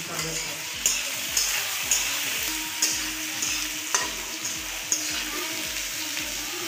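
Sliced onions and bay leaves sizzling in hot oil in a metal kadhai, stirred with a metal spatula that scrapes and clicks against the pan about twice a second.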